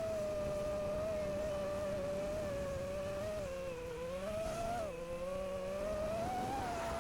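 5-inch FPV quadcopter's brushless motors and propellers whining steadily, the pitch sagging and climbing with throttle, dipping about two-thirds of the way through and rising again near the end.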